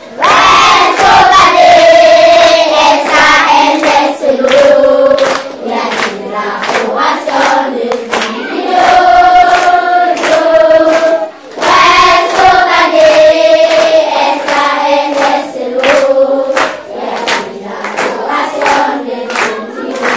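A group of children singing a song together, with handclaps keeping the beat; the sung phrase starts over about halfway through.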